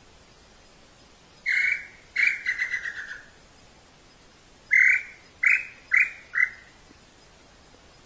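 A bird calling with loud, clear whistled notes. About a second and a half in comes one note, then a quick falling trill. Some three seconds later come four short notes, each a little closer to the last.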